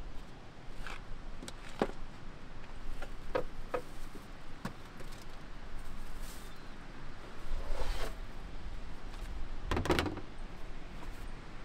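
Camp-kitchen gear being handled in a vehicle's pull-out drawer: scattered clicks and light knocks, then a louder clatter near the end as a skillet is set down on the stove.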